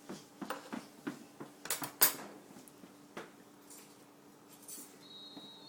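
Dishes and cutlery clinking and knocking as they are taken out of a dishwasher: a string of sharp clinks, the loudest a little after two seconds in.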